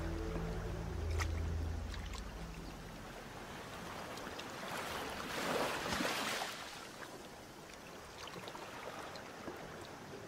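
Shallow water splashing and sloshing in a rock pool as a moray eel thrashes while seizing a crab, swelling to its loudest burst about five to six seconds in, with a few sharp clicks. A held low music chord fades out in the first few seconds.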